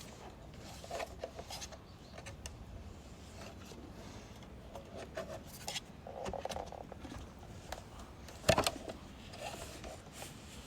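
Clip-on plastic sole plate of a Laurastar Lift Xtra steam iron being fitted by hand: faint rubbing and small plastic clicks, with one sharper click about eight and a half seconds in.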